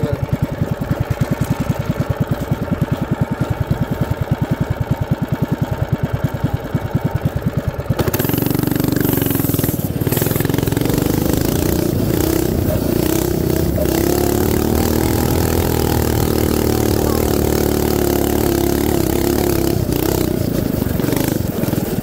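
DuroMax XP7HPE 212cc single-cylinder four-stroke engine on a mini bike running slowly with distinct, even firing beats. About eight seconds in, the throttle opens and it runs steadily at high revs.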